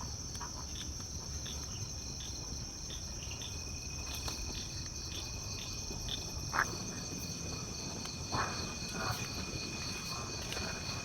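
Night insects, crickets, trilling steadily on high tones, with another chirping in a quick, even pulse beneath. There are two faint soft knocks about six and a half and eight and a half seconds in.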